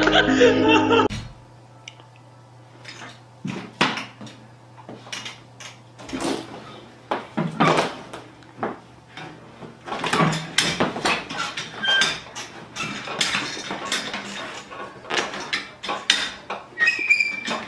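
After a second of music, a tiger cub rips into an office chair, making irregular knocks, scrapes and rattles as the chair and its metal base move on a tiled floor. The clatter gets busier from about ten seconds in.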